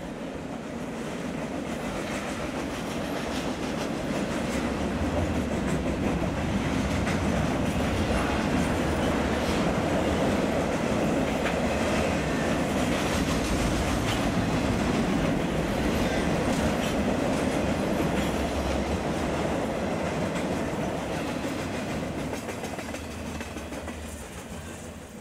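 Freight train of double-stack container well cars rolling past, steel wheels rumbling and clacking steadily over the rail joints. It builds over the first few seconds and fades out near the end.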